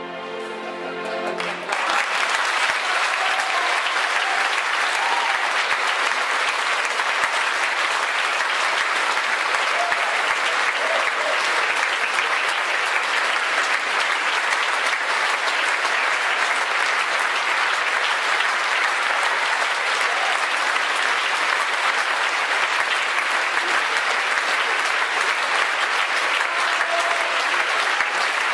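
A large concert audience applauding, steady and loud. It starts about two seconds in, as the last sung note with the orchestra dies away.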